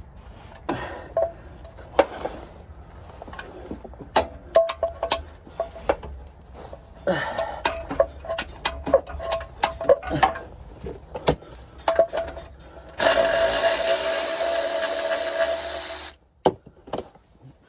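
Metal hand tools clinking and knocking on a car's drivetrain, with a busy clatter of strikes in the middle. Near the end a power tool runs steadily for about three seconds and stops suddenly.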